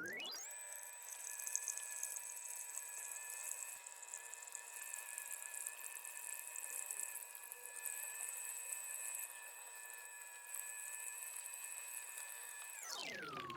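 Keurig K-Supreme Plus coffee maker brewing: its pump runs with a steady whine while water gurgles and pours into the cup, sounding thin with no bass.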